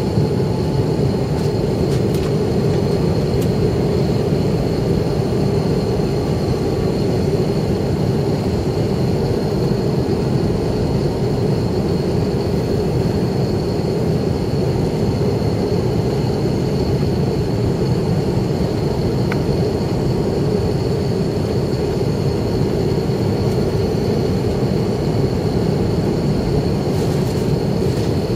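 Steady cabin noise inside an Airbus A321 on approach: engine noise and rushing airflow, with a thin high whine held throughout.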